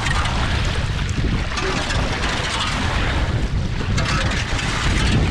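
Wind buffeting the microphone, a steady low rumbling noise, over water splashing in a slot cut through the ice as a wooden-handled pole is worked in it.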